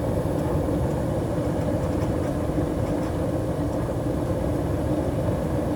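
Furnace blower motor running rough, giving a loud, steady, heavy rumble with vibration. The motor is struggling heavily.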